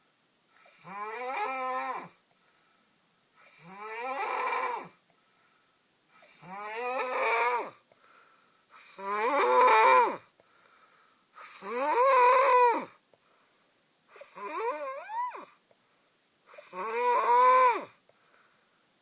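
A man snoring in his sleep: seven long, loud pitched snores about every two and a half seconds, each rising in pitch and lasting about a second and a half, with near silence between breaths.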